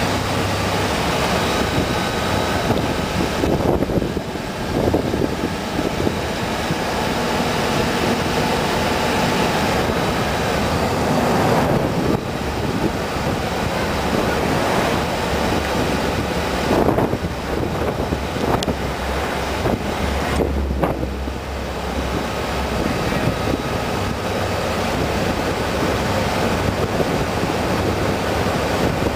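Wind buffeting an exposed microphone on a moving vehicle, over its engine and tyre noise, the rush rising and falling several times.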